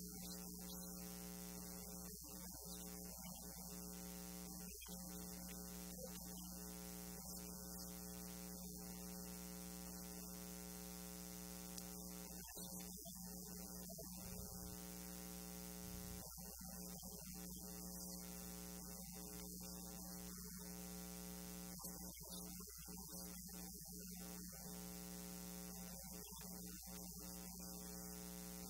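Steady electrical hum with a row of evenly spaced overtones and a faint hiss, unchanging throughout; no one speaks.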